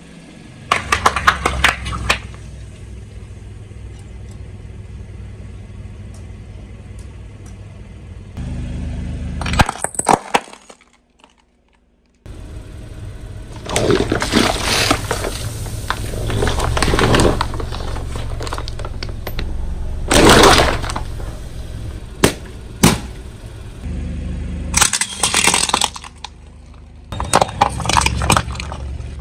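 Car tyre rolling over and crushing crunchy objects: repeated bouts of cracking and crunching over a low rumble from the car, with the loudest crunch about two thirds of the way through. About ten seconds in, the sound drops out to near silence for a couple of seconds.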